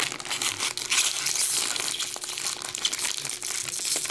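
Foil wrapper of a Bowman Draft Super Jumbo baseball card pack crinkling continuously as hands pull it open, a dense run of fine crackles.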